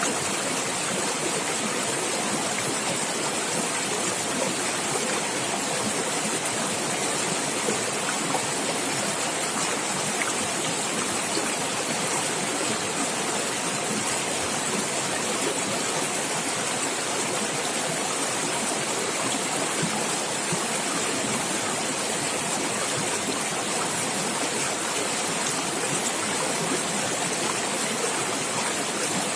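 Stream water running and splashing over rocks with a steady rush.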